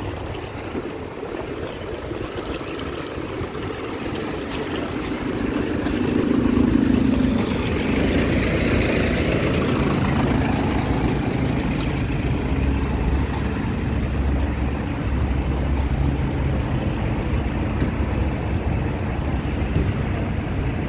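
Steady low rumble of a car, its engine and road noise, which grows somewhat louder a few seconds in.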